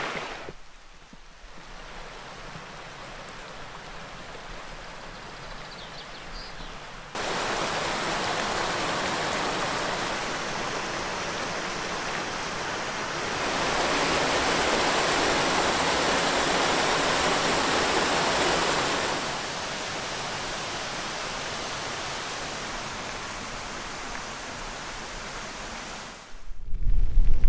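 Rushing water of the young River Barrow, a fast upland stream, as an even hiss that jumps louder about seven seconds in and again about thirteen seconds in, then drops back about nineteen seconds in. It cuts off shortly before the end, where a low rumble of wind on the microphone starts.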